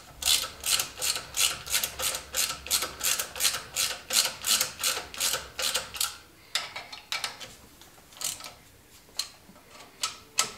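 Hand socket ratchet wrench clicking as it runs down the bolts of a power steering pump bracket: a quick, even train of about four clicks a second, which after about six seconds thins out to a few scattered clicks.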